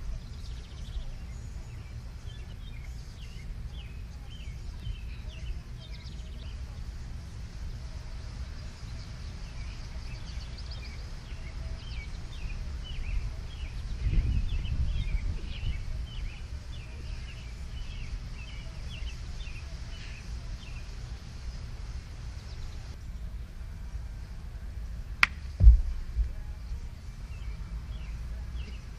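Outdoor ambience: a steady low rumble of wind on the microphone, with small birds chirping through the first two-thirds. About halfway there is a dull thud as a person rolls out on the grass, and near the end a single sharp, louder thump.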